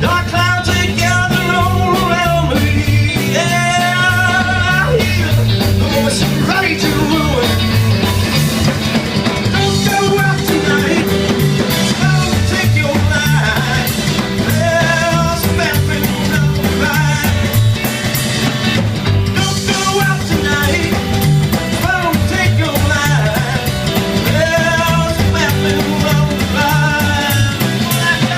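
Live rock-and-roll band playing loud, with a steady drum beat under a lead line that bends in pitch.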